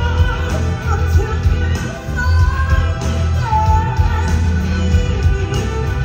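Stage-show music: a singer's voice carrying a gliding melody over loud accompaniment with a heavy, steady bass.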